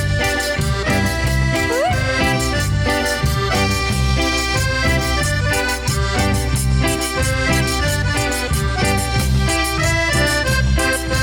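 Cumbia band playing an instrumental passage led by accordion melody, over a steady percussion beat and bass.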